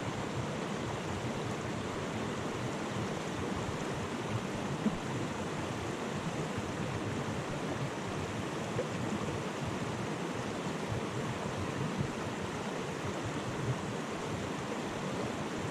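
Mountain stream water rushing steadily, a constant even wash of flowing water.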